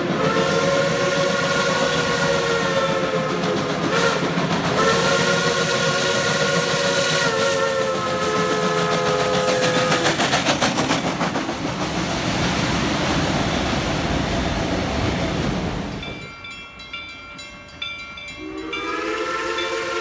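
Steam locomotive's chime whistle sounding several notes at once in two long blasts, about four and five seconds long, followed by the rumble of the passing train. After a quieter stretch, another whistle blast starts near the end.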